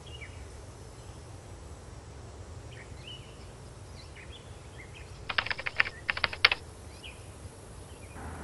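Outdoor ambience: a steady low rumble with small birds chirping here and there. About five and six seconds in there are two short bursts of rapid clicking.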